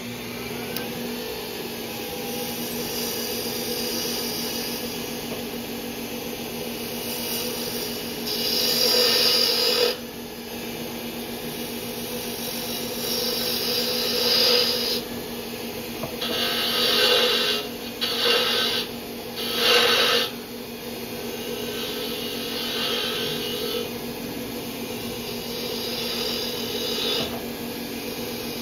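Wood lathe running with a steady hum while a spindle gouge cuts the spinning wooden mallet blank. The cut comes in several louder passes, the strongest about eight to ten seconds in and again between about fourteen and twenty seconds.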